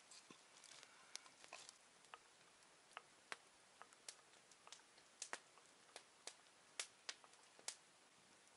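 Faint crackling of a wood campfire: short, sharp pops at irregular intervals, about a dozen in all.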